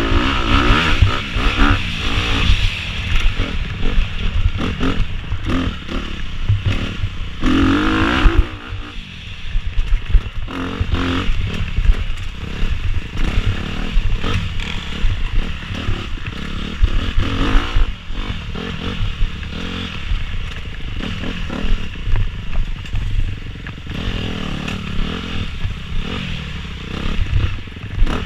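Dirt bike engine revving up and easing off again and again under hard riding, the throttle closing briefly about eight seconds in before it pulls hard again.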